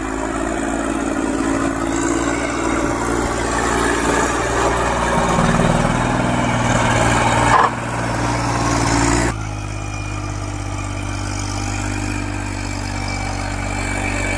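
Massey Ferguson 246 Dynatrack 4WD tractor's three-cylinder diesel engine running under load as it drags a sand-filled trolley through deep mud. It grows louder in the middle, then drops back suddenly twice.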